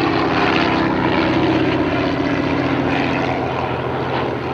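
Propeller-driven First World War fighter biplane, a Fokker D.VII, flying overhead with its piston engine running steadily: a loud, even drone of engine and propeller.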